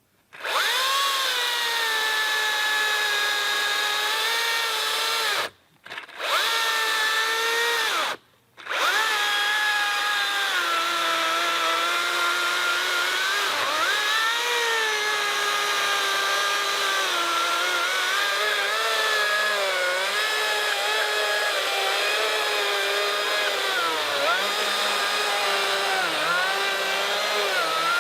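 Makita XCU04 36V cordless chainsaw's electric motor whining as it runs, cutting out twice briefly in the first several seconds, then cutting steadily through a ponderosa pine log, the pitch dipping and recovering as the chain bogs under load.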